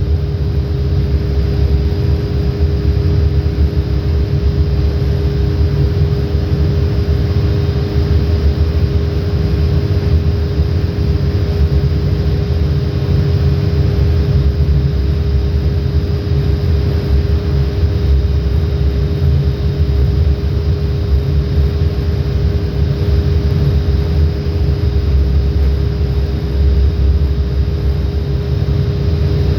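Machinery running steadily and loudly: a deep rumble with a constant humming tone over it.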